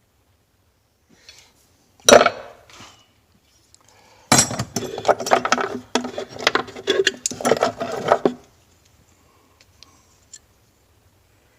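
Old metal hand tools clinking and rattling against each other as they are handled. There is a single sharp knock about two seconds in, then about four seconds of continuous clattering from around four seconds in.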